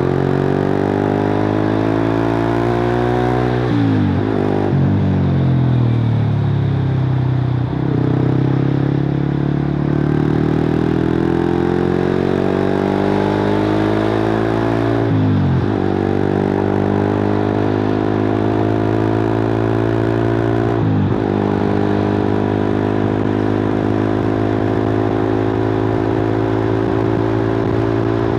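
Suzuki GSX-R150's single-cylinder engine through a cut-open exhaust, ridden under acceleration: the pitch climbs, drops sharply three times at about four, fifteen and twenty-one seconds in as gears change, then holds nearly steady toward the end.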